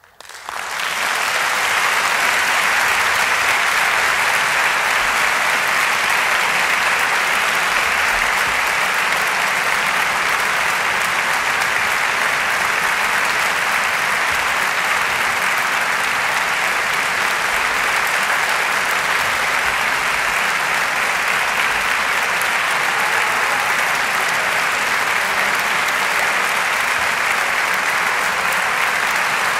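Applause from a large concert-hall audience, swelling up within the first second and then holding steady.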